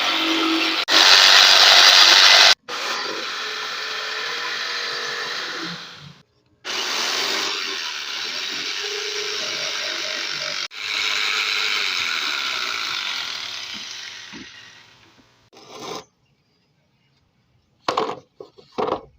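Electric jigsaw running and cutting, in several short stretches that start and stop abruptly, each a steady buzzing motor sound. A few brief sharp sounds come near the end.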